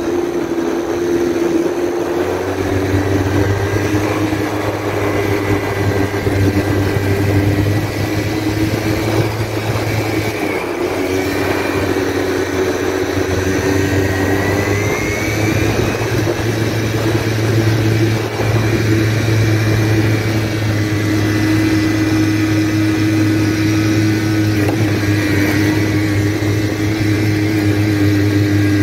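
Motor vehicle engine running steadily, with a low hum that drops out briefly about ten seconds in.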